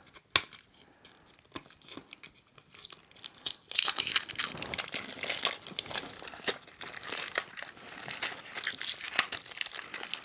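Clear adhesive tape (Tesafilm) being peeled and torn off a radio-controlled car and crumpled: a single click near the start, then dense crackling from about four seconds in.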